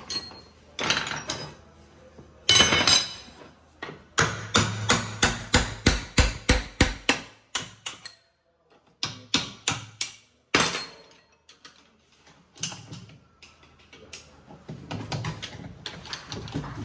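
Hammer blows on the metal parts of a manual gearbox, knocking a tight-fitting part loose. One hard strike comes first, then a fast run of about a dozen blows, roughly three a second. After a short pause there are a few more scattered strikes.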